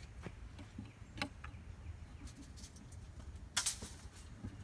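Scattered light clicks and ticks, then a short scraping rustle about three and a half seconds in, over a low steady rumble.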